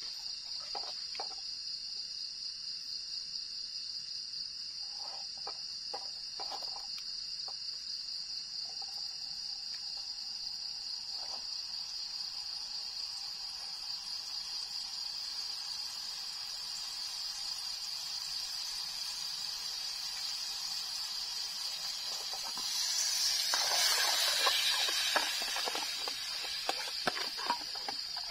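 Crickets trilling in a steady, high-pitched chorus, with a few light taps of a spoon against a metal pan. About 23 seconds in, a louder hiss swells for a few seconds and then eases off.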